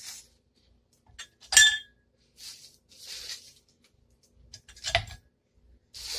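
Ice cubes being dropped into two drinking glasses, clinking against the glass. A sharp ringing clink about a second and a half in is the loudest, and another comes about five seconds in, with softer noises in between.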